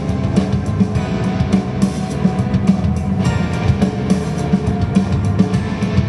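Background rock-style music with drums and guitar, a steady beat.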